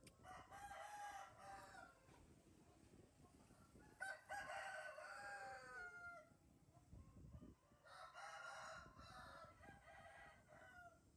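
Three long animal calls, each about two seconds long and a few seconds apart; the middle one slides down in pitch at its end.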